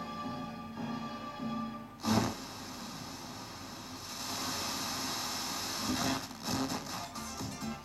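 FM radio played through a Rotel RX 304 receiver. Music is playing, then about two seconds in a sudden burst turns into several seconds of hissing noise. Music comes back in near the end.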